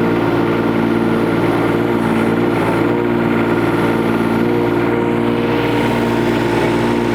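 Kubota U10-5 mini excavator's diesel engine running steadily, with no let-up.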